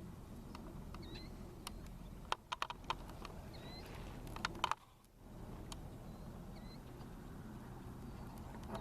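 Small bird chirping in short calls every second or two over a steady low rumble, with two short runs of sharp clicks and knocks in the middle.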